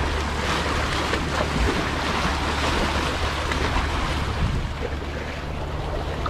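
Sea waves washing and splashing against concrete tetrapod breakwater blocks in rough surf, a steady rushing wash, with wind on the microphone.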